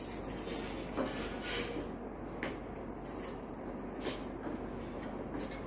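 A few soft knocks and scrapes of a steel bowl against a pan as chocolate melts in it on an electric hot plate, over a steady low hum.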